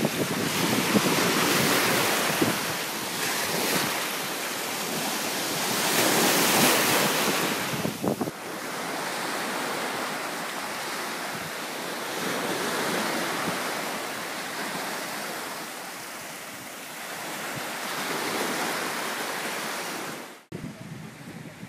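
Small waves washing up onto a sandy beach, the surf rising and falling in slow swells, with wind buffeting the microphone. The sound breaks off abruptly about a second before the end.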